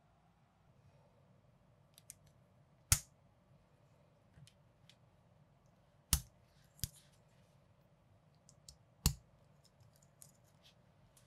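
Lego-compatible plastic parts of a toy motorbike being handled and snapped together: four sharp plastic clicks, about 3, 6, 7 and 9 seconds in, with small taps and ticks of the pieces in between.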